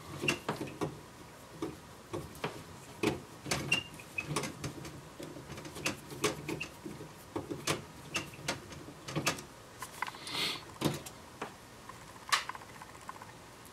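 A screwdriver turning screws into a CD player's sheet-metal back panel: irregular clicks and ticks of metal on metal, with a longer scrape of handling about ten seconds in.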